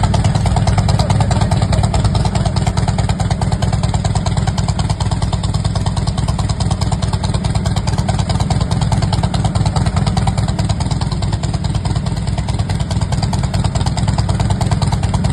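Harley-Davidson V-twin motorcycle engine running steadily at an even speed, without revving.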